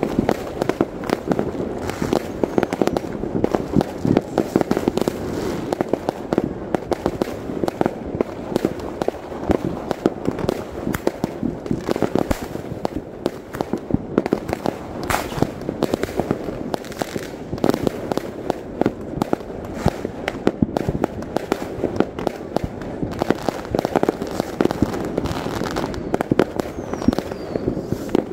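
Many fireworks and firecrackers going off at once: a dense, unbroken barrage of bangs and crackles, several a second.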